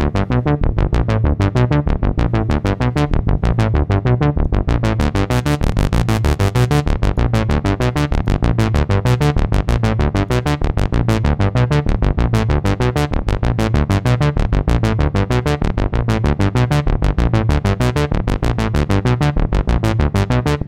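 u-he Diva software synthesizer playing a bass patch in a fast, evenly repeating step-sequenced pattern of short notes, triggered over MIDI from an iPad step sequencer. The tone grows brighter for a few seconds about a quarter of the way in.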